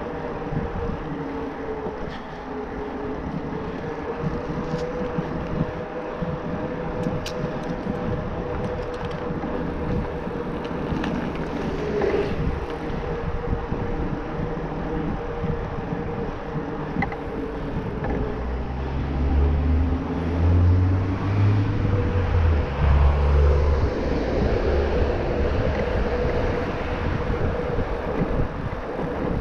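Bosch Performance Line Cruise mid-drive motor whining steadily under pedal assist on a moving e-mountain bike, over tyre and wind noise. About two-thirds of the way in, heavy wind gusts buffet the microphone.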